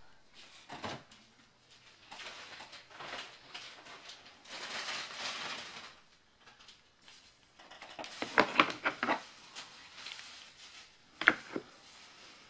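Hard plastic baby-walker parts being handled: rustling and scraping, then a quick run of sharp plastic clicks and knocks about eight seconds in, and another sharp click near the end.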